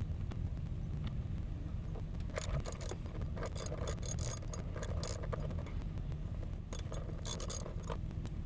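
Socket wrench loosening the battery hold-down bolt: quick metallic clicks and scraping in two bouts, the second near the end, over a steady low rumble.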